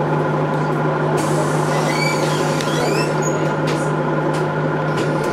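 Dennis Trident double-decker bus's diesel engine running with a steady drone, heard from inside the lower deck, its deepest note fading near the end. A few short rising high squeaks sound about two seconds in.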